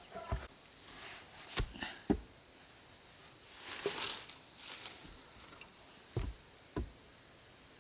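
A few separate knocks and thuds, about six in all, with a longer rustling scrape about four seconds in.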